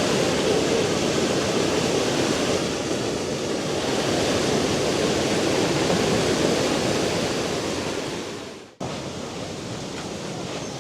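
Steady rushing of a swollen river running high and fast after heavy rain. About nine seconds in the sound cuts out abruptly, then the rushing carries on somewhat quieter.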